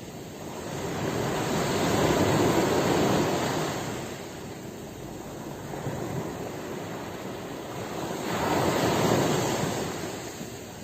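Ocean waves breaking and washing in, two swells of surf that build up and fade away about six seconds apart.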